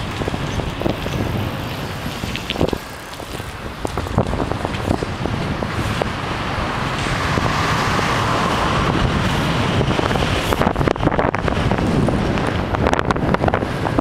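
Wind buffeting a helmet camera's microphone while riding along pavement and asphalt, with a steady low rumble and many short rattles and knocks from bumps in the surface, most frequent in the last few seconds.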